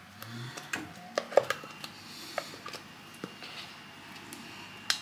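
A spatula scraping mascarpone out of a plastic tub into a ceramic dish, giving soft scrapes and scattered light clicks and taps against the plastic.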